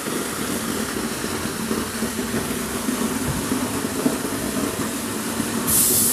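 Garden wall-waterfall fountain running: a sheet of water falls from a blade nozzle into a stone basin, a steady splashing. A brief louder hiss comes just before the end.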